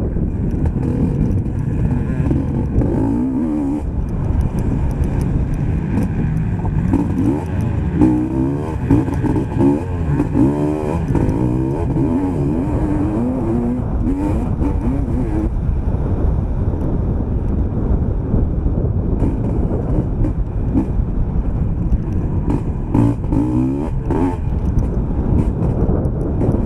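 Motocross bike engine heard from on board, running hard and revving up and down over and over as the rider accelerates, shifts and backs off on the track.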